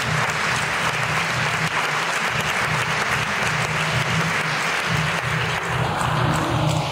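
Audience applauding steadily, over the bass of background music.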